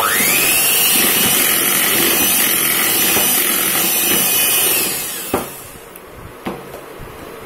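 Electric hand blender switched on to beat cake batter: its motor whine rises quickly to a steady high pitch, holds, and runs down about five seconds in. Two sharp knocks follow.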